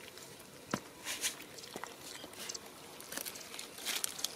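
Bare hands digging and crumbling dry, caked mud: scattered crunching and scraping with a few sharp clicks.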